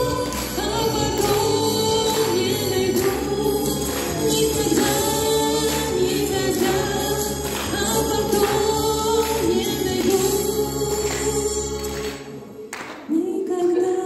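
A man and a woman singing a duet into microphones over a backing track with a steady beat. Near the end the backing's bass drops out, there is a brief lull, and a held sung note comes back in.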